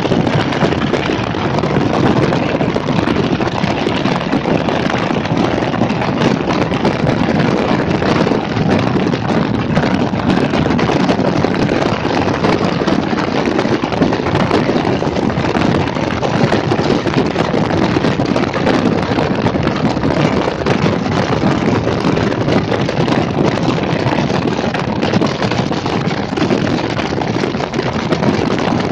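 Wind buffeting the microphone: a loud, even rushing noise that holds steady without a break.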